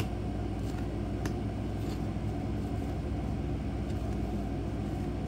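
Steady low background hum, with a couple of faint clicks from trading cards being handled.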